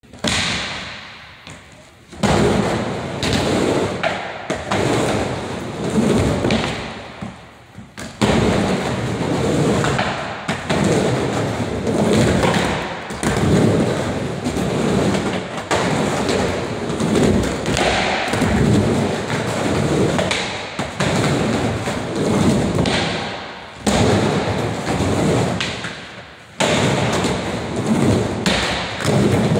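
Skateboard wheels rolling back and forth over a wooden mini ramp, the noise swelling and fading with each pass. A few sharp thuds of the board hitting the ramp.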